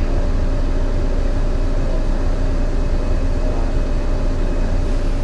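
On board a MAN NL202 CNG city bus under way, the gas engine runs rough with a bad misfire. Over it sounds a steady whine from the ZF Ecomat five-speed automatic gearbox.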